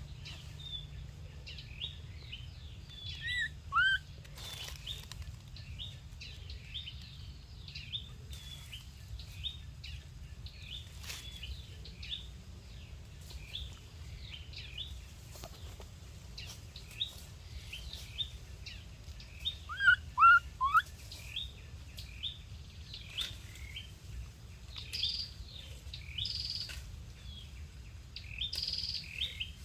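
Many small birds chirping without pause, with a steady low rumble underneath. A few louder short sliding calls come twice, once about four seconds in and once about twenty seconds in.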